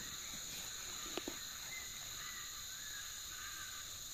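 Steady high-pitched drone of many crickets, with a few short bird calls in the middle and two brief clicks about a second in.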